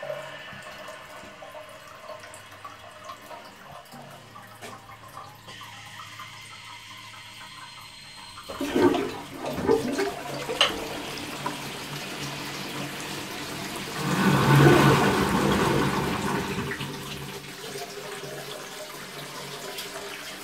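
High-level cistern flushing a 1930s Crystal toilet pan, a flush like a very old cast-iron bell syphon cistern. About eight seconds in, water comes down in a few sudden rushes, then swells into a loud gush through the bowl and tails off near the end.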